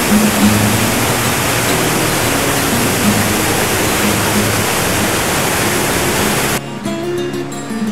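Steady, loud rushing of the Iguazu Falls' whitewater at the base of the falls, with music playing faintly beneath it. About six and a half seconds in, the water sound cuts off suddenly and only the music, a plucked guitar, is left.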